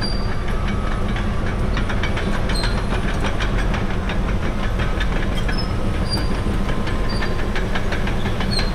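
Caterpillar D6R crawler dozer with its C9 diesel running steadily under load, its steel tracks clanking rapidly with short high squeaks now and then as it moves.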